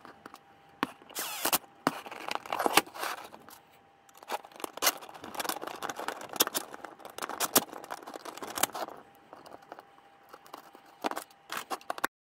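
Hard plastic and steel parts of a 3D-printed model excavator bucket being handled and fitted: irregular sharp clicks, taps and scraping as thin steel pins are pushed through the hinge holes. The sound cuts off abruptly near the end.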